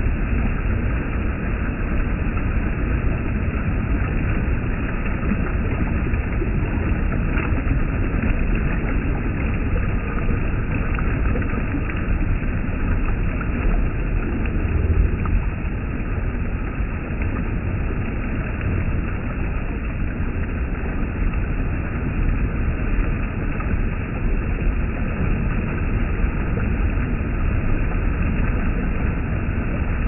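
Shallow stream water spilling over a low step into white water, a steady rush heavy in low rumble.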